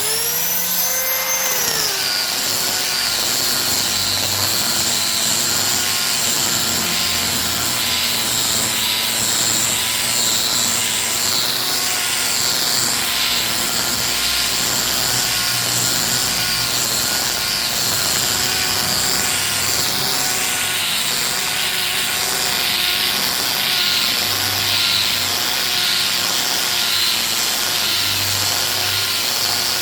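Hand angle grinder with a sanding disc sanding a solid-wood chair seat. The motor whine drops in pitch about two seconds in as the disc bites into the wood, then runs steadily under load, with a rasp of abrasive on wood that swells and fades about once a second as the disc is swept back and forth.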